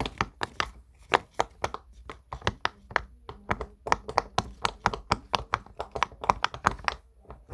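Bubbles of a silicone pop-it fidget toy being pressed one after another in a quick run of small pops, several a second.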